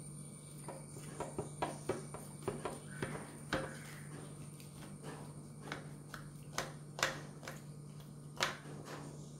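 Knife cutting through a toasted bread sandwich, the crisp toast crackling in irregular sharp snaps, a few louder than the rest.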